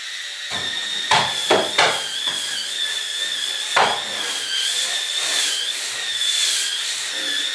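Electric spin scrubber running with a high, slightly wavering whine, its spinning brush head scrubbing the bathtub, with a few short scrapes and knocks against the tub.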